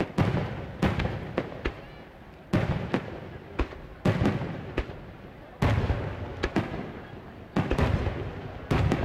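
Aerial firework shells bursting in quick succession, about a dozen sharp bangs each trailing off in a low rolling rumble.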